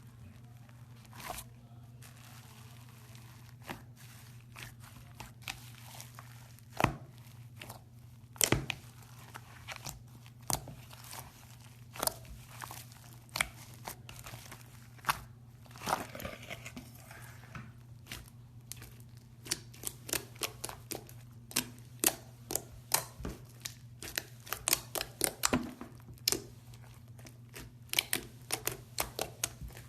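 Fingers poking and pressing a pink bubblegum-type slime, giving irregular sharp pops and crackles that come thicker in the second half, over a steady low hum.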